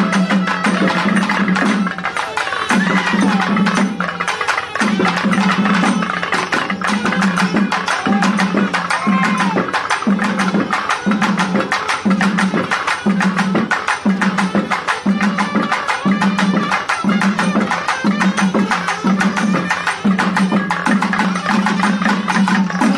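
Loud traditional festival percussion music: dense, fast drumbeats over a deep beat that comes about once a second, without a break.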